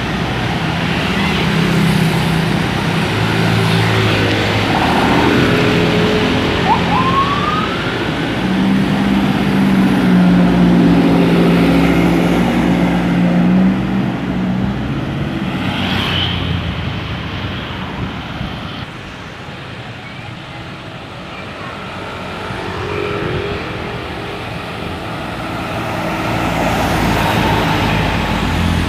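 Tour bus 'telolet' musical air horn (a DAV basuri horn module) playing tunes of held, stepped notes, in three spells near the start, in the middle and near the end. Bus engine and road noise run underneath.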